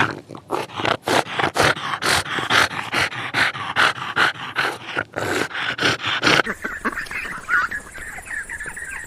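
Dog barking rapidly and repeatedly, about three barks a second, stopping about six seconds in; a fainter, higher-pitched sound follows.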